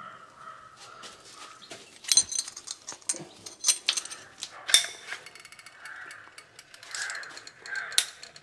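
A run of sharp clicks and knocks from tools and fittings being handled while a pillar tap is secured under the counter. Near the end comes the ratcheting click of a caulking gun as silicone is laid on the basin's rim.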